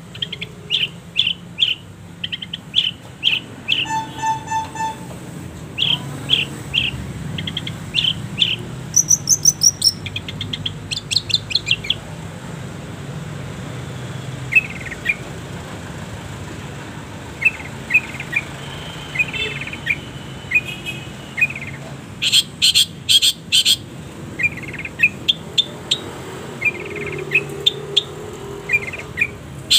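Long-tailed shrike (cendet) singing a varied song of short sharp chirps and fast rattling trills, delivered in bursts with pauses between them; the densest bursts come near the start and again about three-quarters of the way through, over a faint steady low hum.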